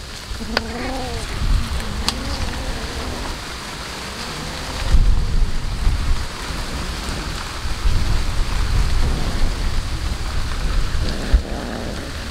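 Cats chewing raw fish close to the microphone: wet crunching and crackling noise with scattered clicks and a low rumble underneath. A short cat call sounds about half a second in.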